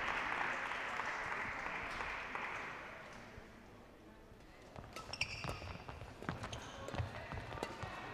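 Crowd applause in a sports hall dying away over the first three seconds. About five seconds in a badminton rally starts: sharp cracks of rackets hitting the shuttlecock every half second to second, with a few short high squeaks.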